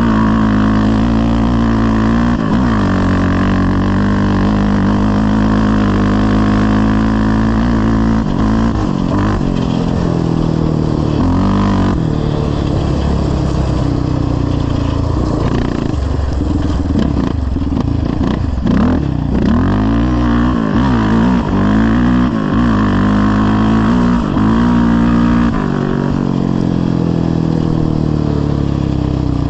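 Yamaha Raptor 700R quad's single-cylinder four-stroke engine running loud through a full CT Racing exhaust as the quad is ridden. The engine revs up and drops back repeatedly as the throttle is worked, with the quickest rises and falls in the middle and later part.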